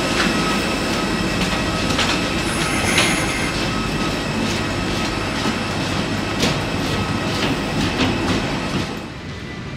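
Airbus A320 cabin noise while taxiing after landing: a steady low rumble with a thin steady whine above it, broken by irregular knocks and rattles. The rumble drops away near the end.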